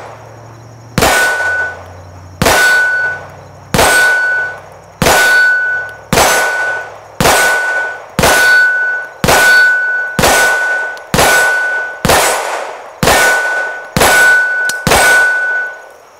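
A string of about fourteen 9mm pistol shots from a Glock 17 Gen5 firing Remington UMC ammunition, roughly one a second, each followed by a short, steady ring from the AR500 steel target plate being hit.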